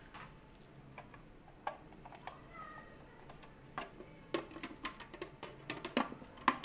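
Plastic clicks and knocks as an electric food chopper's lid and motor unit are fitted onto its plastic bowl, coming thicker from about four seconds in.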